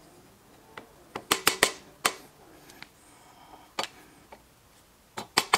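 Irregular sharp metal taps and clicks, a few with a short metallic ring, as a screwdriver works the tab of a lock washer into the slot of the Bridgeport spindle's upper bearing lock nut. The taps come in small clusters, the loudest a quick run of three about a second and a half in.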